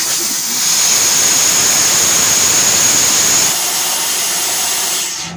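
Compressed air blasting through a car's disconnected AC pipeline from the expansion-valve side, a loud steady hiss that flushes out trapped water and dirt. A high whistling edge rides on it until about three and a half seconds in, and the blast cuts off near the end.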